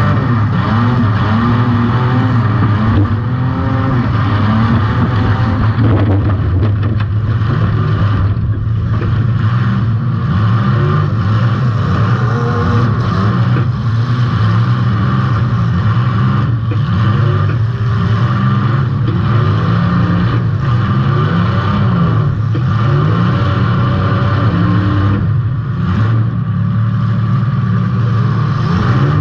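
Demolition-derby compact car's engine revving hard, its pitch rising and falling over and over, with several sharp knocks from hits.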